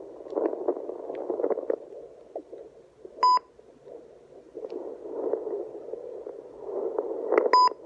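Handheld fetal Doppler's loudspeaker giving out static and crackling as the gelled probe is moved over a pregnant belly, searching for the fetal heartbeat without yet picking it up. Two short beeps cut through, one about three seconds in and one near the end.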